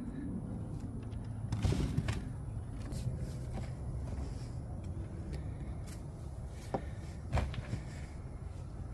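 Shovel work in soil: dirt being scooped and dumped onto boards over a burrow, with a few short scrapes and thuds, the strongest about two seconds in and two more near the seven-second mark, over a steady low rumble.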